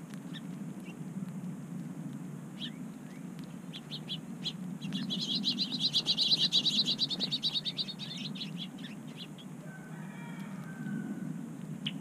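A songbird gives a loud, rapid trill of evenly repeated high notes, lasting about three seconds, starting about five seconds in. Scattered short chip notes come before and after it.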